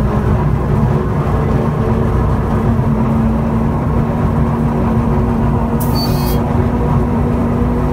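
Diesel locomotive engine (200DS No.400) running steadily, heard from inside its cab as it moves along the track. A short, high hiss comes about six seconds in.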